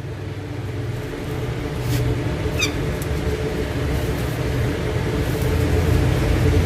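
A steady low mechanical hum, growing slightly louder, with one brief high falling chirp from the ringneck parakeet about two and a half seconds in.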